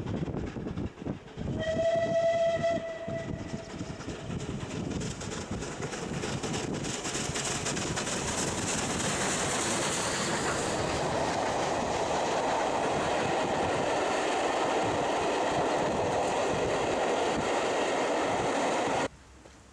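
Steam locomotive whistle sounding once for about two seconds, then the locomotive passing with a train of Pullman coaches running by over the rails, the rush of the train building to a steady level before cutting off suddenly near the end.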